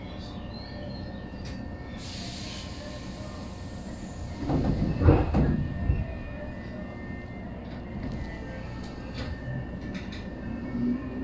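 Tobu 800 series electric train standing at a platform: a steady low rumble, a short hiss of air about two seconds in, and a louder burst of sound around five seconds in. Near the end a low hum starts to rise in pitch as the train begins to pull away.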